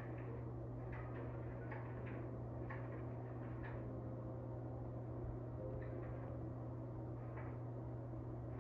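Quiet room tone: a steady low hum with a handful of faint, light ticks scattered through.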